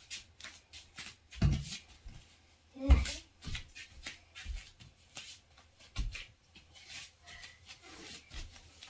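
Rustling of cloth and body movement as a child moves in an aerial yoga hammock, with a few soft thumps, the clearest about a second and a half in, around three seconds in and about six seconds in.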